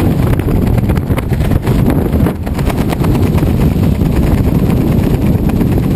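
Freefall wind rushing over the body-mounted camera's microphone during a tandem skydive: a loud, steady rumble with rapid flutter, dipping briefly about two seconds in.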